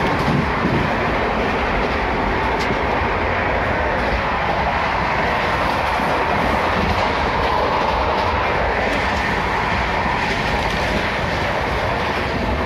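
Steady rumble and rattle of a moving passenger train, heard from inside a crowded sleeper coach.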